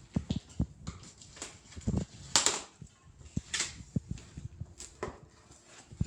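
Irregular knocks and clicks with a couple of short rustling swishes, from hands handling the plastic parts and packaging of a juicer mixer grinder.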